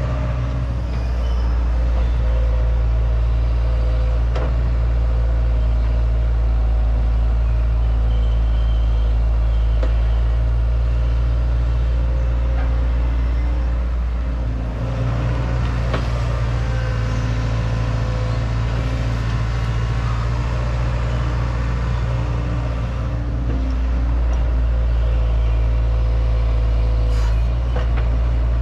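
Hydraulic excavator's diesel engine running steadily under working load. It eases off and picks up again twice, and there are a few faint knocks from the machine.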